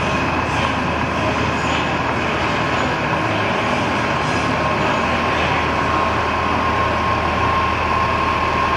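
Diesel engine of a Kenworth semi tractor running steadily as it rolls slowly past at close range, with a thin steady high tone over the rumble.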